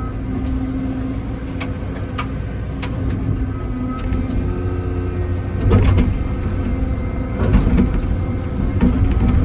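Excavator running as it digs: a steady diesel engine drone, with sharp clanks of the bucket and linkage several times.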